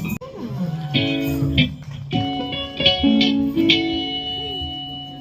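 Guitar playing a loose phrase of plucked notes and chords. Some notes slide in pitch and others are left to ring, and the playing fades away near the end.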